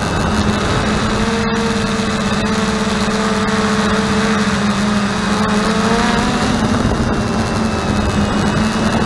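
Eye One Xtreme quadcopter's electric motors and propellers whining steadily, heard from on board the quad, with the pitch shifting slightly about six seconds in.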